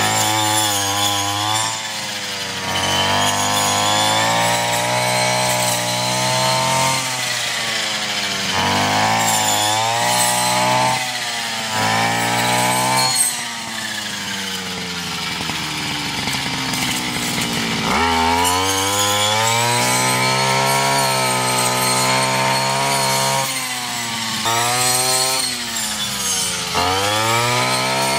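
Petrol brush cutter engine running at high revs while its blade cuts through tall fodder grass, the pitch repeatedly sagging and climbing again as the throttle and load change. About halfway through it drops to a lower pitch for several seconds, then revs back up.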